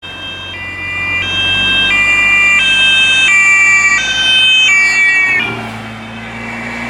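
German police patrol car's two-tone Martinshorn siren sounding continuously, alternating between a high and a low tone about every two-thirds of a second, then cutting off about five and a half seconds in, leaving a steady vehicle hum.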